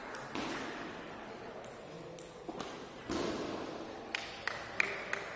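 Table tennis ball clicking off the bats and the table during a rally, with scattered single ticks early on and a quick run of five sharp ticks in the last second and a half.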